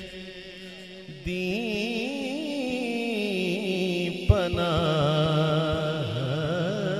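Male naat reciter singing a long drawn-out, wavering melismatic line over a steady held drone. The voice enters strongly about a second in and swells again just after a sharp tap about four seconds in.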